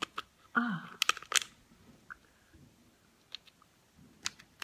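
Cooked lobster tail shell being bitten and pulled apart: scattered sharp clicks and cracks, loudest about a second in, with faint chewing between them.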